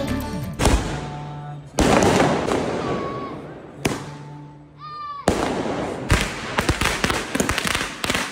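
Fireworks going off: four loud bangs a second or two apart, each trailing off in a long fading crackle, then a rapid string of firecrackers popping from about six seconds in.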